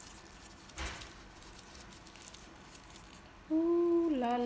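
Faint rustling and crackling of a grilled banana leaf being peeled open, with one louder crackle about a second in. Near the end a woman starts humming a held note that dips lower in pitch.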